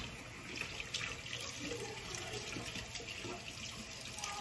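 Kitchen tap running steadily into a sink as hands are rinsed under it.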